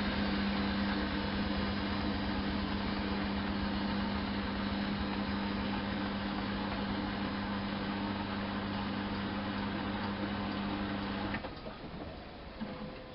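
Miele Softtronic W 204 washing machine running mid-program with a steady hum that cuts off suddenly with a faint click about eleven seconds in, leaving a quieter background.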